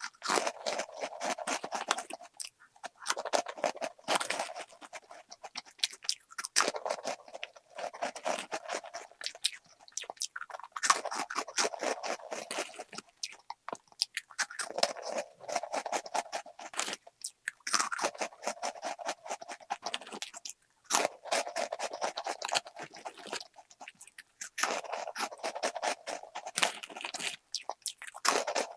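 A person chewing Chakani, a crunchy Korean snack, in repeated runs of rapid crunches a few seconds long with short pauses between mouthfuls.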